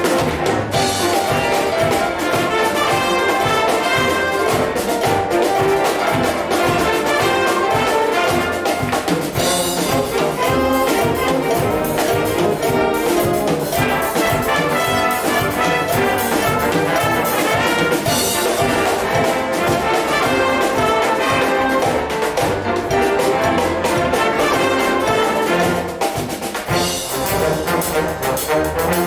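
Concert wind band playing live, the brass section to the fore, trombones and trumpets, over a steady percussion beat.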